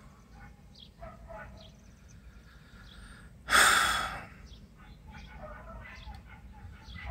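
Small dogs yapping in short, repeated barks. About halfway through, a loud sigh cuts across them for under a second.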